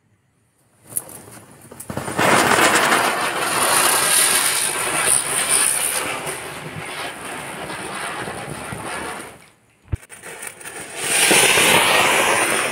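Ground spinner firework (chakri) hissing loudly as it spins and throws sparks. It starts about a second in and stops abruptly after about eight seconds. A sharp click follows, then a second spell of hissing near the end.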